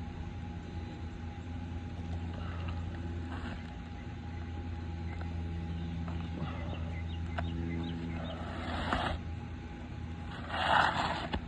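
Steady low mechanical hum of a running motor or engine, with two short scraping noises near the end.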